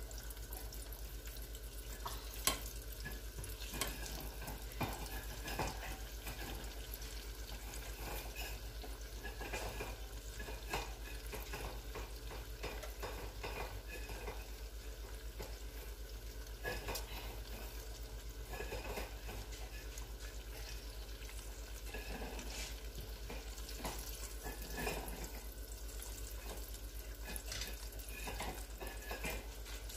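Plantain turnovers deep-frying in a small saucepan of hot oil: a steady sizzle, with scattered short clinks as a wire spider skimmer turns them in the pan.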